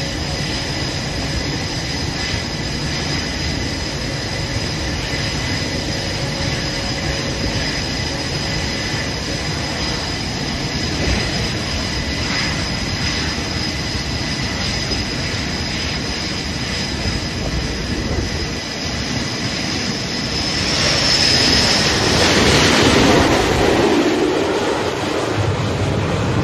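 Steady jet-engine noise on an aircraft carrier's flight deck with a thin high whine; about 20 seconds in, an F/A-18 fighter's engines grow loud as it comes in and lands on the deck, the noise peaking a few seconds later and then easing.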